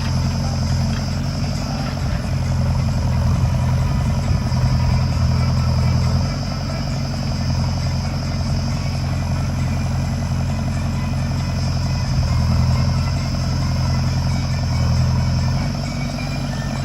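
Heavy diesel engine running steadily at a low rumble, growing louder a couple of times as it works under load.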